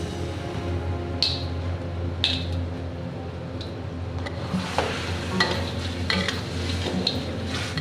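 Utensil stirring chicken in a cooking pan, knocking against the metal about seven times, over a light sizzle of frying.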